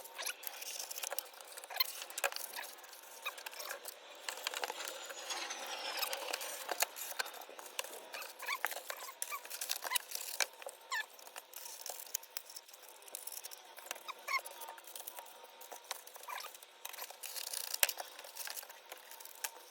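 Hand work on materials: scattered small clicks, light scrapes and short squeaks, irregular and with no steady machine sound.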